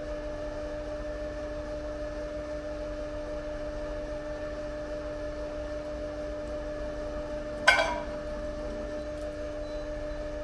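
A geopolymer mortar test prism fracturing under load in a testing machine: one sharp crack about three-quarters of the way in, with a brief rattle after it, over a steady hum.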